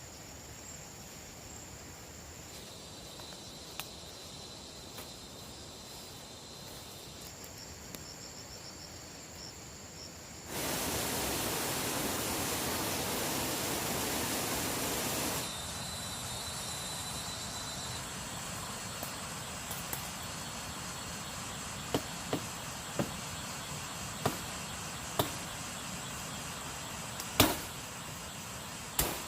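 Forest ambience with insects calling steadily at a high pitch. About ten seconds in comes some five seconds of loud even hiss, and in the last several seconds a series of sharp knocks about a second apart.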